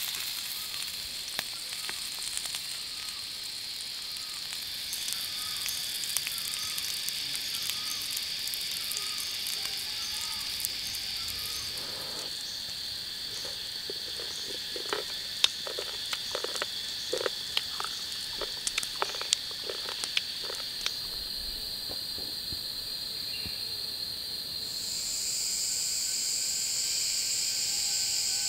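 Steady high-pitched insect drone in the forest, with a faint short call repeating about every second during the first several seconds. A run of sharp clicks and snaps comes in the middle.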